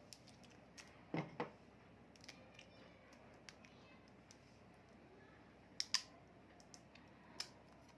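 Scattered light clicks and taps from handling a new smartphone and its packaging, in a pair about a second in, another pair around six seconds and one more shortly after.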